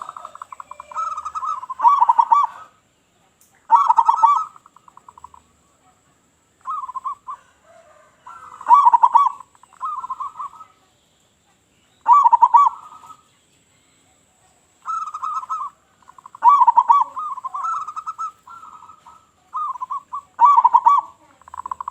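Local-strain zebra dove (perkutut) cooing its song: repeated short phrases of rapid, trilling coo notes, a new phrase every two to four seconds.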